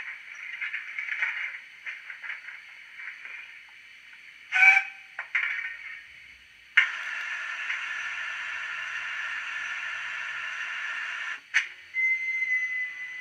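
Steam-locomotive sound file played by the DCC sound decoder in a Hornby GWR 52XX 2-8-0 tank engine model, through a small tablet speaker, so it sounds thin and high with no bass. The engine stands with soft irregular clicks and hissing. About four and a half seconds in comes a short whistle toot. A steady hiss of steam follows for about four and a half seconds and cuts off, and a thin steady tone comes in near the end.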